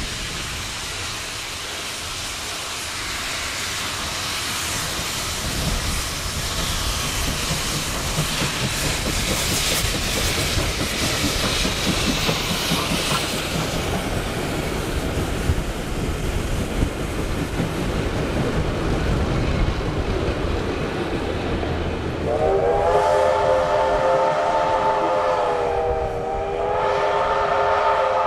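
Victorian Railways D3 class steam locomotive hauling its carriages past: steady rumble of the train with wheels clicking over rail joints. Its multi-tone whistle then sounds two long blasts, the second after a short break.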